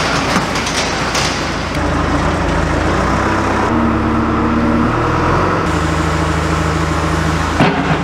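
Diesel engine of a John Deere 310SE backhoe running as the machine moves, its pitch stepping up and down several times with changes in throttle and hydraulic load. It is preceded in the first second or two by the rolling rattle of a sectional overhead garage door going up.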